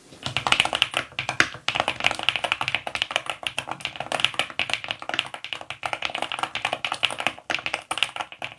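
Fast typing on a Slice75 HE magnetic keyboard with Gateron Magnetic Jade Pro linear switches, PBT keycaps and an aluminium case: a dense, steady stream of keystroke clacks with a couple of brief pauses.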